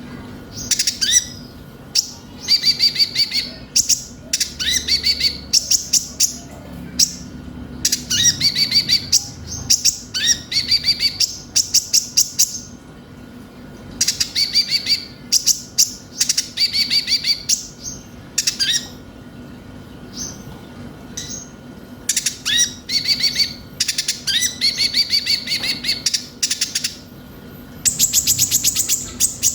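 Konin, the small sunbird called 'kolibri ninja' in Indonesian bird-keeping, singing: fast, high, trilled chirping phrases of about a second each, repeated over and over with short pauses. The song is played as a lure to set other konin singing. A faint steady hum runs underneath.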